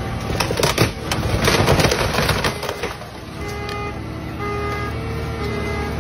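Excavator bucket crushing the roof of an SUV: a cluster of loud crunches and cracks of buckling sheet metal and breaking glass from about half a second to three seconds in. The excavator's diesel engine runs steadily underneath.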